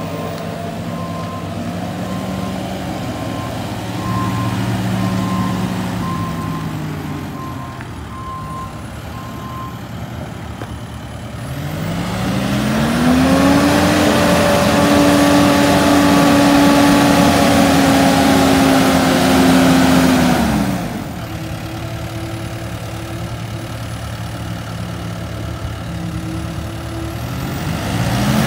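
SkyTrak 8042 telehandler's diesel engine running as the machine drives, with a reversing alarm beeping steadily over the first several seconds. About twelve seconds in, the engine revs up and holds high for some eight seconds, then drops back to a low steady run, and revs up again near the end.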